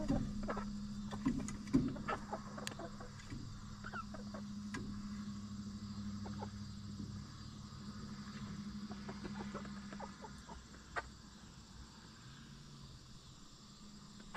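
Backyard hens clucking softly, with short scattered calls and clicks, over a steady low hum that stops about two-thirds of the way through.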